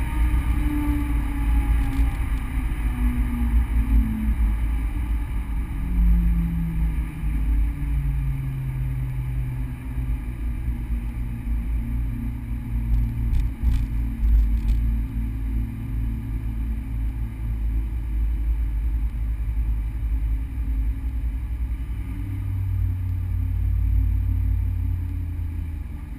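Subaru BRZ's 2.0-litre flat-four boxer engine, heard from inside the cabin with an automatic gearbox. The engine note falls in several steps over the first eight seconds, then holds low and steady, over a heavy rumble of road and wind noise.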